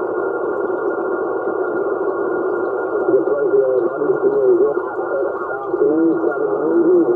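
Xiegu transceiver receiving single-sideband on the 11 m CB band: a steady hiss of static. About three seconds in, a weak, warbling, garbled voice from a distant skip station fades in and out under the noise.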